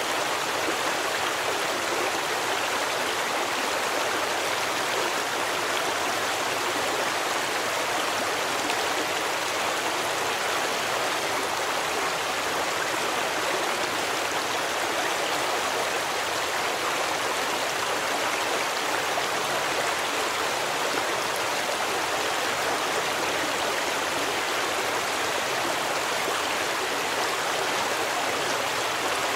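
Stream water flowing and splashing over rocks, a steady rushing sound.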